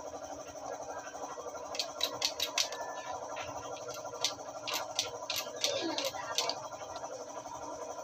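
Light, sharp metallic clicks and taps, about a dozen at irregular spacing, bunched in the middle few seconds, as tools and small parts are handled against a Rusi motorcycle engine's aluminium crankcase half. A steady faint hum runs underneath.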